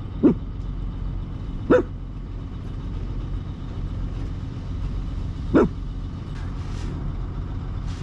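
A dog barking three times, single short barks spaced a few seconds apart, over the steady low rumble of an idling engine.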